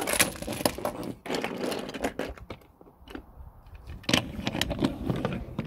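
Handling noise from the phone being held and moved close to the deck: irregular scrapes, clicks and rustles in three bunches, with a quieter stretch in the middle.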